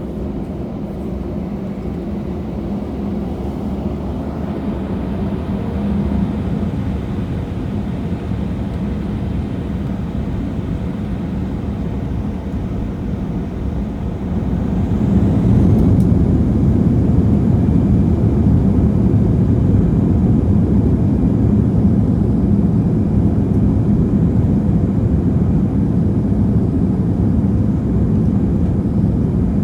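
Airbus A320-200 jet engines during take-off, a steady rumble that steps up and grows louder about fifteen seconds in.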